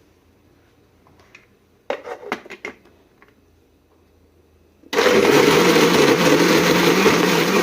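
Electric blender switching on abruptly about five seconds in and running steadily at full speed, blending a whole quartered lemon, peel on, with water. Before it, a few brief light knocks about two seconds in.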